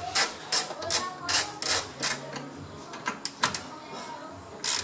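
Socket ratchet wrench clicking in short bursts as it is swung back and forth on the bolt holding a coolant expansion tank, about two or three strokes a second at first, then slower and more spaced out.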